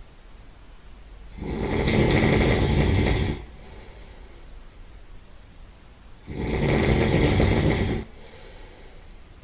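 A man snoring loudly through his nose: two loud snores, each about two seconds long and about five seconds apart, with quieter stretches between.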